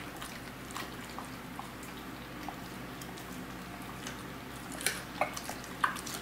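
German Shepherd chewing and licking a raw chicken drumstick: scattered soft clicks and ticks of teeth and tongue on the meat and bone, with a few louder ones around five seconds in.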